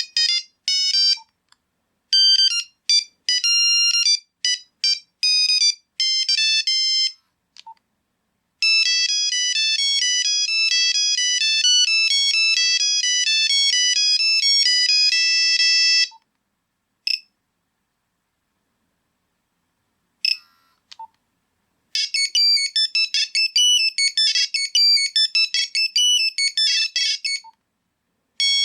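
Nokia 3310 monophonic ringtones playing one after another: short beeping tunes of quick single notes, with silent gaps between tunes. A longer unbroken melody runs from about a third of the way in to past the halfway point, and a rapid tune follows near the end.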